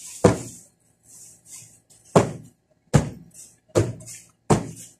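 Upholstered sofa cushions being beaten to knock the dust out: five sharp thwacks, most of them under a second apart, with a swishing between strokes.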